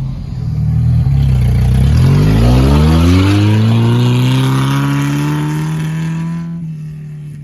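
Suzuki Vitara's engine revving hard under load: its pitch climbs steeply over a couple of seconds, holds high, then eases off about a second before the end.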